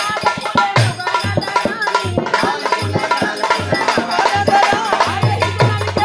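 Bhojpuri sohar folk song played with steady dholak drum beats and jingling, rattling percussion.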